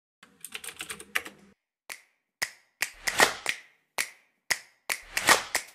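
Computer-keyboard typing clicks from an animated intro, a quick run of keystrokes as text goes into an on-screen search bar. They are followed by separate sharp clicks and two louder noisy swooshes.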